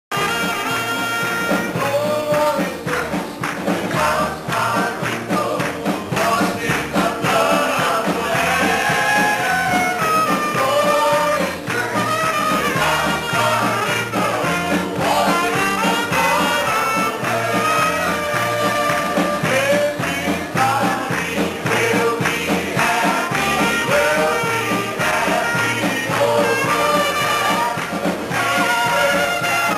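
A man singing a gospel song into a handheld microphone through the church PA, over instrumental accompaniment with a steady bass line.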